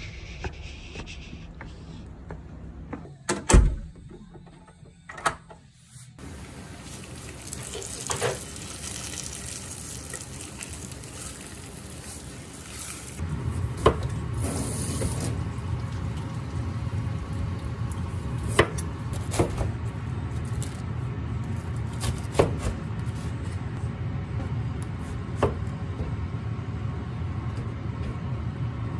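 Kitchen tap running into a sink, the water getting heavier about halfway through, with a few sharp knocks of things against the sink. A loud knock comes about three seconds in.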